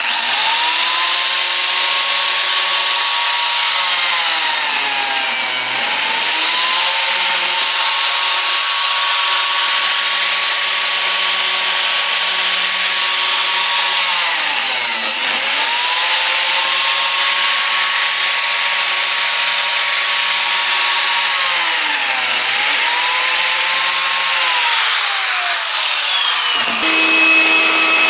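Biscuit joiner motor running at a high whine, its pitch sagging and recovering three times as the blade plunges into the pine panel under load. Near the end the joiner winds down and a steadier machine hum carries on.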